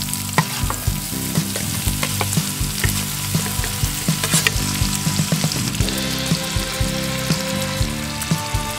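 Bacon and chopped vegetables sizzling in a hot cast-iron skillet as more diced potato, tomato and leek are tipped in and pushed around, with frequent short clicks and scrapes of the utensil against the pan.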